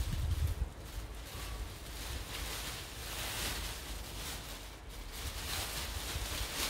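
Thin plastic bin bag rustling and crinkling as it is shaken open and handled, with a low thud right at the start.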